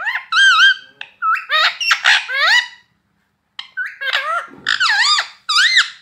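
Rose-ringed parakeet vocalising close up: a rapid run of short, high calls that bend up and down in pitch, a pause of about a second, then a second run of calls.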